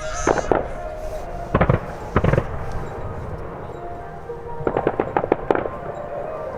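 Fireworks going off: separate sharp bangs about half a second to a second apart, then a quick run of crackling reports about five seconds in, over faint background music.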